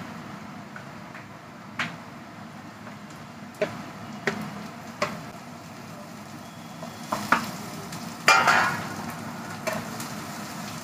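Chopped beetroot frying in hot oil in a non-stick kadhai and being stirred with a wooden spatula: a soft, steady sizzle under a string of sharp knocks of the spatula on the pan and a short scrape about eight seconds in.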